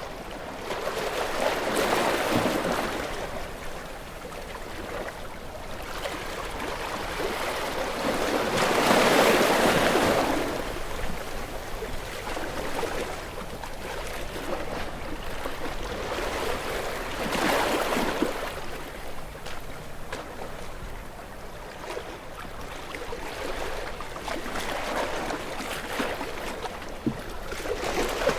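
Ocean waves breaking against rocks: a steady wash of water swelling into a loud rush four times, every seven to eight seconds.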